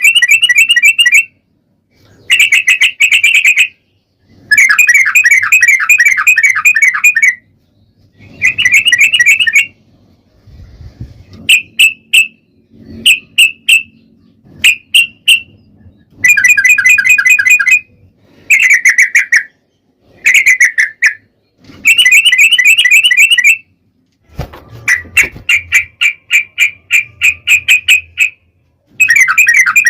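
Yellow-vented bulbul (trucukan) singing: repeated phrases of rapid, bubbly chattering, each one to three seconds long with short gaps between. Around the middle the phrases give way to a few short separate calls, then the long chattering phrases start again.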